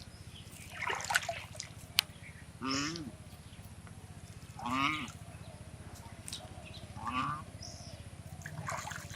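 A swan calling: short honking calls repeated about every two seconds, five in all.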